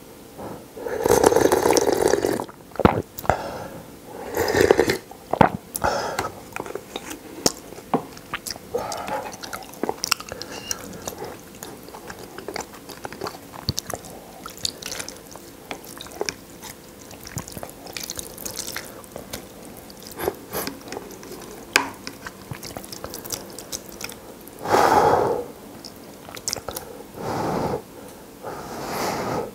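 Close-miked eating of spicy instant noodle soup: loud slurps of broth near the start, then chewing and wet mouth smacks with small clicks of a fork and chopsticks in the bowl, and two more loud slurps near the end as noodles are drawn in.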